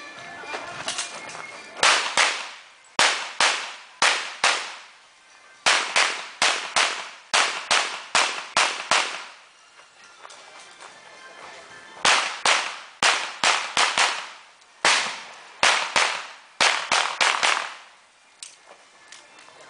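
Handgun shots fired in four quick strings of several shots each, with pauses of a second or two between the strings.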